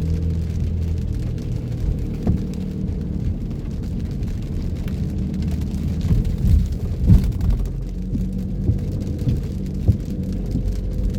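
A car driving in rain: a steady low rumble of road and engine noise under the sound of rain, with a few short sharp knocks about two, seven and ten seconds in.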